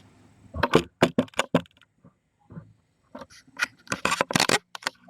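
A quick run of sharp clicks and clatters from small hard objects being handled, in two bursts, one about half a second in and a denser one near the end.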